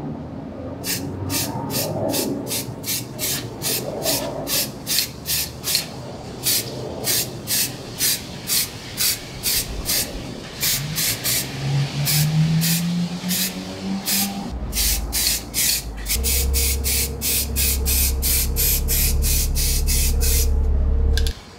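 Aerosol topcoat spray can hissing in short bursts, about two a second, with a few brief pauses. A low hum runs underneath and grows stronger about two-thirds of the way through.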